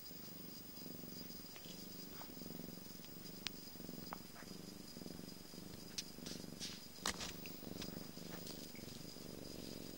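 A sleeping cat purring steadily in slow, even pulses. A few light clicks are heard along with it.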